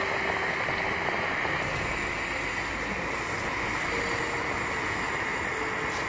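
Lion 933 brass kerosene pressure burner running at full flame under a boiling pot, a steady rushing sound. The flame is strong.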